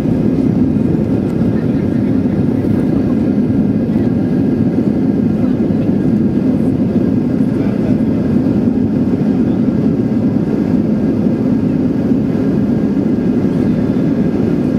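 Boeing 737-800 cabin noise: a steady, loud rumble of its CFM56 jet engines and airflow heard from inside the cabin.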